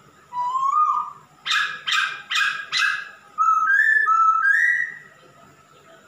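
Male masked laughingthrush (Poksay Hongkong) in full song: a rising whistled note, then four loud short notes in quick succession, then a run of whistled notes alternating up and down in pitch, stopping about five seconds in.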